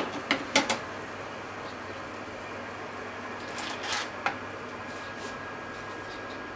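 Water simmering in a pot with sheets of fried tofu (aburaage) being blanched to remove their oil: a steady hiss, with a few sharp clicks near the start and a small cluster of pops and clicks about four seconds in.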